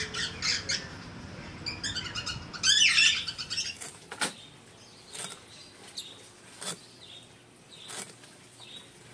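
Birds chirping loudly for the first three seconds. Then a cleaver chops through a green vegetable onto a wooden block, six sharp knocks about a second apart.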